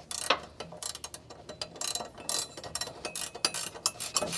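Metal exhaust parts and hardware clinking as a replacement muffler is handled and fitted up under the van with a new exhaust gasket: many short, irregular metallic clicks.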